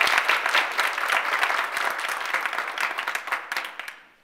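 Small audience applauding with many hands clapping, dying away near the end.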